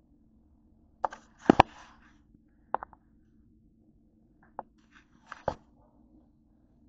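A handful of sharp, irregular knocks and clicks, the loudest a quick pair about a second and a half in, over a faint steady room hum.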